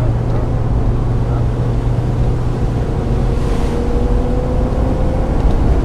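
1995 Mazda Miata's four-cylinder engine running under load on track, its pitch rising slowly over the last few seconds as it pulls through a gear, with a brief hiss about halfway through.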